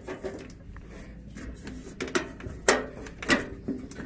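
Metal parts inside a Peterbilt 379 door being worked by hand behind a diamond-plate panel. Soft rattling gives way to four sharp metallic clicks about half a second apart in the second half.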